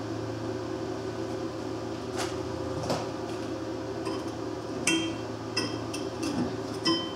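Steady electrical hum of the plasma cutter left running between cuts, with about five light metallic clinks and taps of cut steel pieces being handled.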